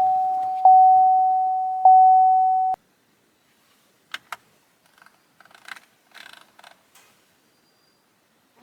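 A truck's dashboard warning chime: a single clear tone repeating about every 1.2 seconds, fading between strikes, that cuts off abruptly about three seconds in. It is followed by a few faint clicks and handling noises.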